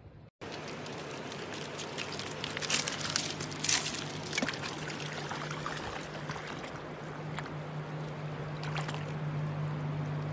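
A dog wading and splashing through a shallow river, with water sloshing around its legs over the steady rush of the stream. The loudest splashes come about three to four seconds in and again near the end, over a low steady hum.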